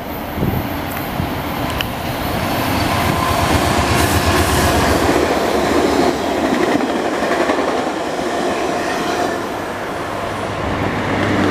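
VIA Rail passenger train of LRC coaches passing close by at speed, with a steady rumble and the clatter of wheels on the rails. It grows louder through the middle as the coaches go by, then eases off near the end.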